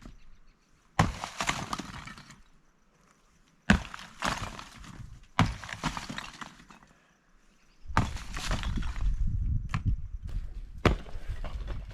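Sledgehammer blows on a cinder-block wall: about five sharp strikes a couple of seconds apart, each followed by the rattle and crumble of broken block falling.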